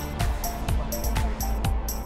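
Background electronic music with a steady beat: a kick drum about twice a second under a repeating hi-hat pattern.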